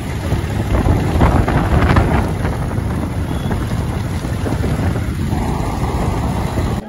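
Wind rushing and buffeting over the microphone of a moving motorbike, with the bike's engine running underneath; the rush swells about a second in, then settles.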